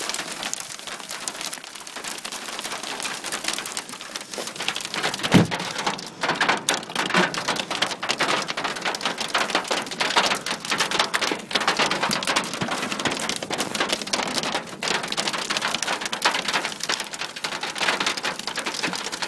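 Hailstones pelting the car's roof and body, heard from inside the car: a dense, unbroken clatter of countless small impacts.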